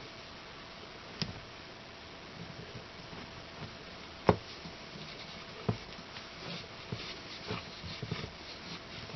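Hands working small parts and silicone tubing on a bench, making scattered small clicks and taps. The loudest tap comes about four seconds in, and a run of quieter ticks and handling noises follows in the last few seconds.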